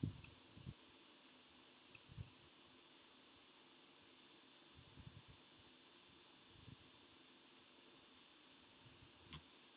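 A loud, high-pitched screech, one steady tone pulsing several times a second. It is the kind of background noise that feels like it breaks your eardrums.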